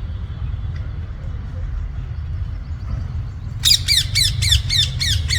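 A parrot squawking: a rapid run of about eight harsh, shrill screeches, roughly four a second, starting a little past halfway, over a steady low rumble.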